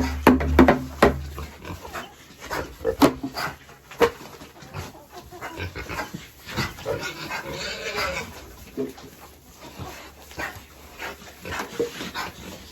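Pigs grunting and squealing in a run of short, sharp calls, with one longer, harsher squeal about seven seconds in.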